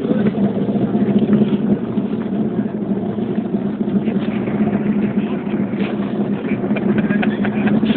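Watercraft engine running at a steady low speed, with a constant hum and a wash of wind and water noise.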